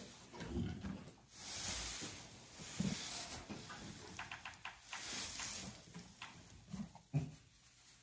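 A Clydesdale mare moving about in a straw-bedded stall: straw rustling in two longer stretches, a run of small clicks, and a couple of soft low thuds from her shifting hooves.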